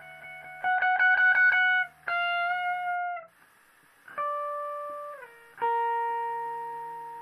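Free noise rock: guitar played through effects, a fast run of repeated notes about a second in, then long held notes. One note slides down in pitch before a new note sounds and slowly fades.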